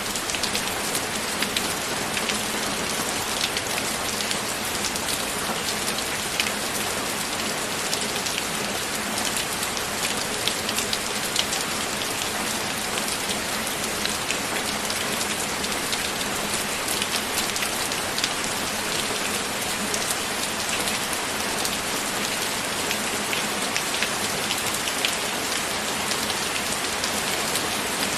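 Steady rain falling on a surface, a dense even hiss with many close individual drop ticks.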